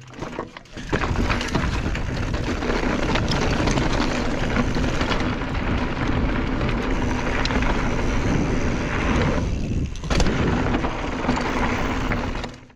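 Riding noise from a mountain bike descending a rocky dirt trail: tyres crunching over gravel and stones, the bike rattling with many small clicks and knocks, and a steady low wind rumble on the chest-mounted camera's microphone. It starts about a second in and eases briefly near ten seconds.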